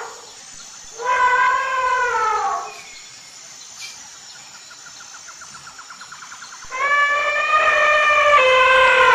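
Elephant trumpeting: a call about a second in that falls in pitch at its end, then a longer call from about seven seconds that steps down in pitch near its end. Between the two calls there is a faint, fast pulsing buzz.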